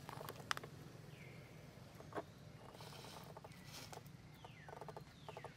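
Quiet outdoor ambience over a low steady hum, with a few sharp clicks and several faint high calls. The calls fall in pitch, two of them near the end.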